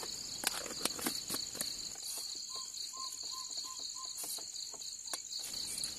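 Crickets chirping steadily, with a few light clicks from handling the steel bowl and flour bottle in the first two seconds and once near the end. About two and a half seconds in comes a quick run of five short peeping notes.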